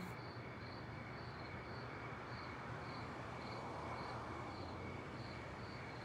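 Crickets chirping in an even rhythm, about two chirps a second, over a faint steady low hum of night background noise.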